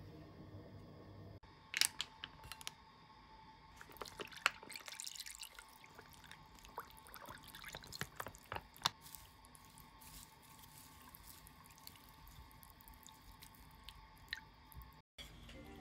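Cold broth poured from a sachet into a bowl of sliced acorn jelly: faint trickling and dripping with scattered small splashes and clicks, busiest in the first half.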